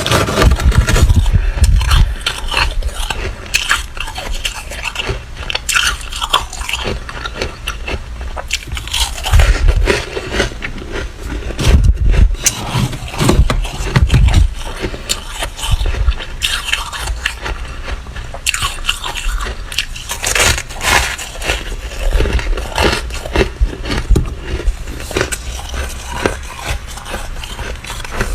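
Freezer frost being scraped, bitten and chewed: a dense run of crunching and crackling from the flaky, squeaky ice.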